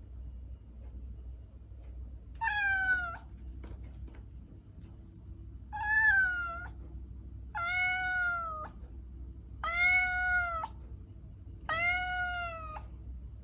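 Domestic cat meowing five times, each meow just under a second long and about two seconds apart, over a faint low steady hum.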